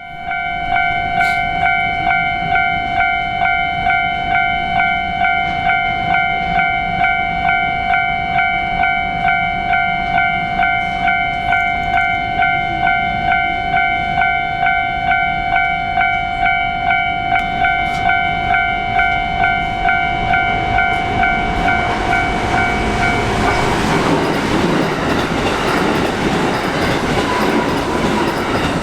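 Japanese railroad crossing warning bell ringing in an even, rapid rhythm of about two to three strokes a second. About three-quarters of the way through, the rumble and wheel clatter of a passing electric train rise, and the bell stops soon after while the train runs on.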